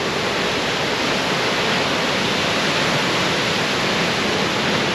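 Waterfall with a drop of about 25 to 30 metres, a steady, even rush of falling water that swells slightly over the first second.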